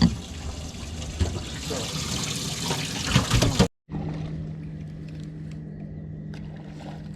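Water from a boat's live-well pump pouring and splashing into the live well, with a few sharp splashes or knocks. It cuts off suddenly past the middle and gives way to a steady low hum with faint clicks.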